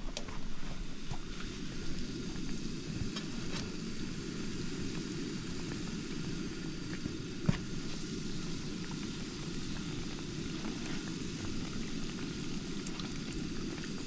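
Donuts deep-frying in hot oil: a steady bubbling sizzle with scattered small pops, and one louder click about halfway through.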